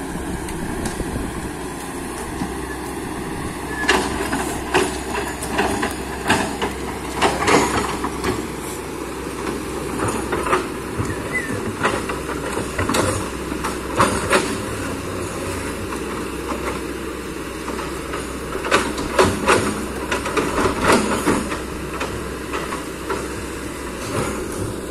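Excavator working: its diesel engine running steadily under repeated irregular clanks and knocks, which come in clusters a few seconds apart.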